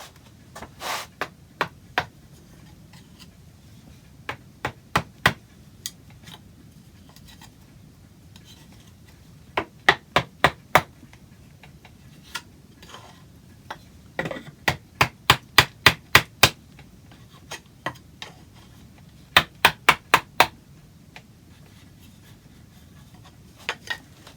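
Sharp hammer blows in quick runs of four to nine strikes, with pauses of a few seconds between the runs.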